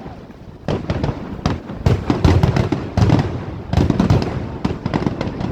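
Fireworks going off: repeated deep booms mixed with many sharp crackling pops.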